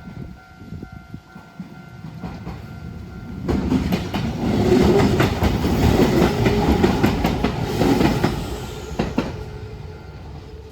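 Enshu Railway electric train passing over a small level crossing: a rumble that swells a few seconds in, with rapid wheel clicks over the rail joints, loudest in the middle and fading away near the end.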